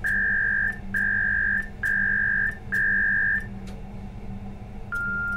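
Samyung SRG-3150DN MF/HF DSC radio beeping during its self test: four long, steady beeps about a second apart, then a short, lower beep near the end, over a faint steady low hum.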